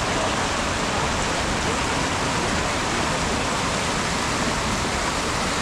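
Fast current of the Ganga river rushing steadily past the ghat, an even hiss of moving water.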